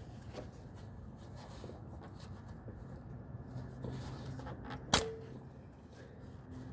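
Hand tools worked on a plastic oil filter housing: faint clicks and scrapes, with one sharp metallic clink that rings briefly about five seconds in, over a low steady hum.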